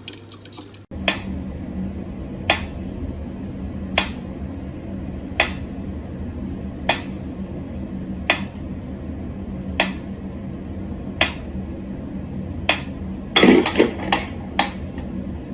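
Water dripping at a steady pace, one drop about every second and a half, over a steady low hum, with a short flurry of louder knocks near the end.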